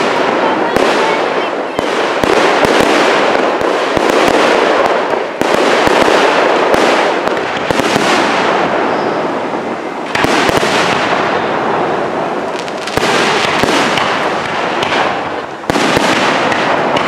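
Aerial firework shells bursting one after another: sharp bangs over a dense, continuous crackle, with a fresh loud burst every two to three seconds.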